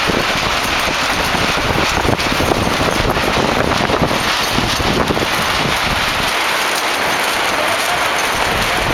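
Strong wind buffeting the microphone: a steady loud hiss over a gusty low rumble, the rumble dropping away for about two seconds near the end.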